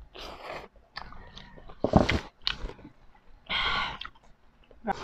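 Close-miked slurping and chewing of ramen noodles, in a string of short wet bursts, with a sharp smack about two seconds in and a longer slurp a little later.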